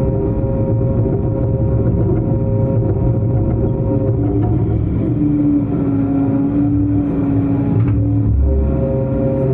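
Long-arm excavator's diesel engine running steadily under working load, with a higher whining tone coming in about halfway and a brief deep rumble near the end.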